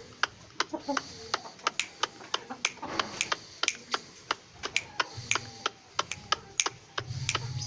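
A rapid, irregular series of sharp clicks or taps, several a second, with faint voices in the background.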